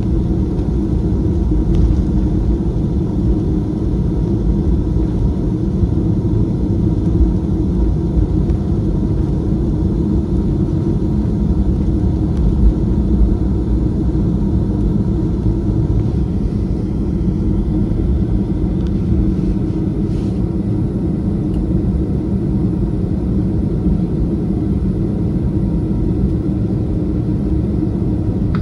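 Steady cabin noise of a Boeing 737-500 taxiing after landing, heard from a window seat over the wing: its CFM56 engines running at idle under a low, even rumble from the wheels on the taxiway.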